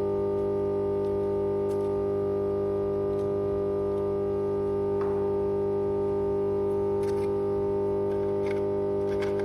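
Steady electrical hum of a power transformer: several even tones held without a break, strongest in the low-mid range. A few faint clicks and taps sound about halfway and near the end.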